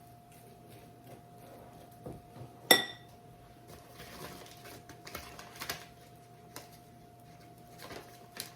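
A kitchen utensil strikes a bowl once with a sharp, ringing clink, followed by lighter scattered clatter and scraping of utensils against dishes. A faint steady hum sits underneath.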